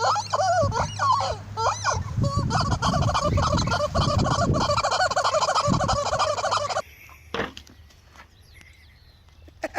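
Fowl calling loudly in a dense chorus of rapid warbling calls, several birds at once, which stops abruptly about seven seconds in.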